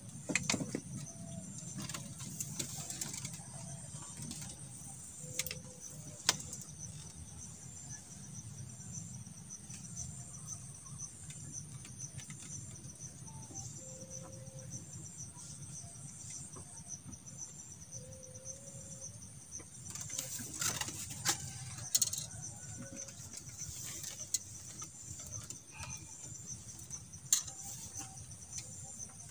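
Insects chirping steadily in a high, evenly pulsing trill, over a low steady rumble, with a few light knocks now and then.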